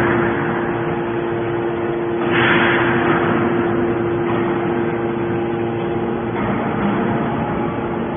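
Hydraulic aluminium can baler running: a steady motor-and-pump hum with a constant tone, and a louder rushing surge that swells and fades about two and a half seconds in.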